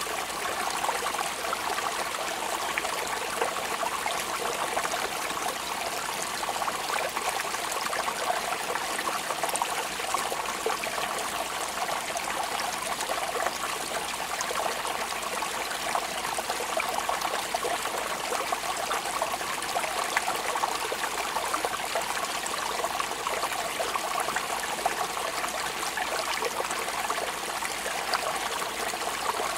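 Steady rain falling: an even, unbroken hiss flecked with many small drop hits.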